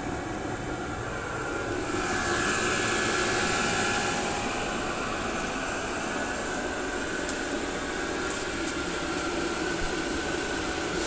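Vevor 12/120-volt diesel heater running at maximum power (setting 10): a steady whoosh of its combustion-air blower and burner, swelling slightly a couple of seconds in.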